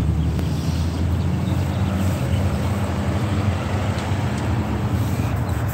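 Steady low rumble of road traffic, with a vehicle's engine hum standing out through the middle of it.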